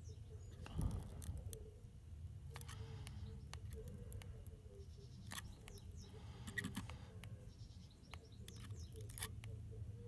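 Faint scattered clicks and taps as ceramic tweezers pinch a glowing dry-fired clapton coil to even out its hot spots, over a steady low hum.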